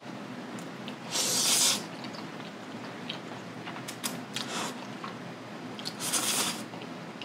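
A person slurping sauce-coated Jjapaghetti noodles, two loud slurps about a second in and near six seconds in, with soft chewing clicks between.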